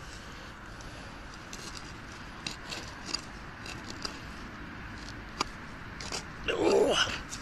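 Gloved hand scraping and rummaging through loose soil and dry leaves in a freshly dug hole, with scattered small clicks and crackles, then one louder sound of about half a second near the end.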